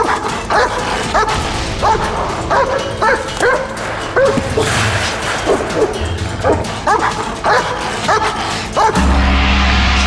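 A large dog barking repeatedly, short barks about twice a second, stopping about nine seconds in as music swells.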